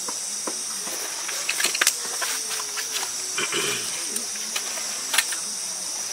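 A steady, high-pitched chorus of night insects, with a few sharp clicks and rustles of things being handled at a camp table.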